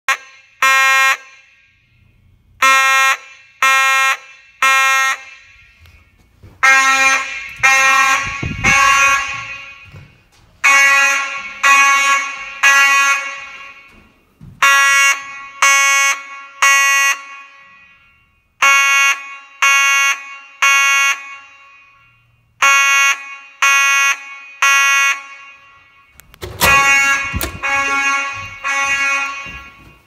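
Simplex mechanical fire alarm horn sounding the temporal-three evacuation pattern: three buzzy one-second blasts, a pause, then three more, repeating about every four seconds. Each blast leaves a short echo.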